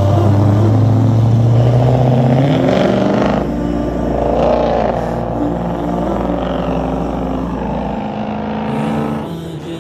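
Car engines running and revving, rising in pitch about two and a half seconds in and again about four and a half seconds in, then settling.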